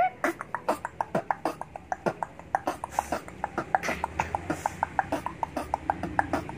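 A boy beatboxing with both hands cupped over his mouth: a fast, even run of clicking beats, several a second, after a short rising vocal sweep at the start.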